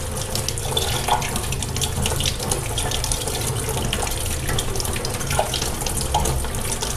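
Tap water running steadily into a stainless-steel sink, splashing over a handful of bitter gourd leaves as they are rinsed and rubbed by hand.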